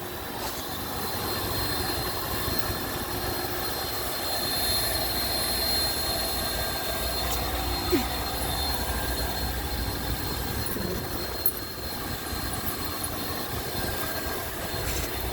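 Steady machine drone with a low rumble and a thin, high whine above it, and a brief click about eight seconds in.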